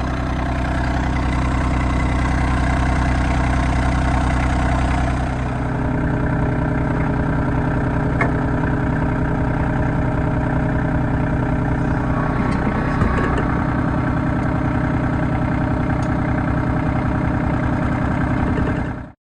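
RK25 compact tractor's diesel engine running steadily. About five seconds in its low hum changes, as under a shift in load or speed, with a couple of light knocks later, and the sound cuts off suddenly near the end.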